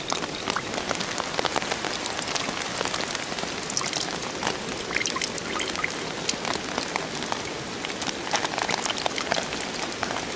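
Heavy rain falling on a poncho shelter overhead and the wet leaf litter around it: a dense, steady rush of countless small drop hits. Runoff from the poncho drips into metal camp cups.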